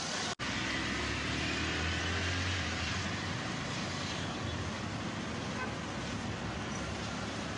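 Street traffic noise, a steady hiss with a low engine rumble from about half a second to three seconds in, broken by an instant's dropout just after the start.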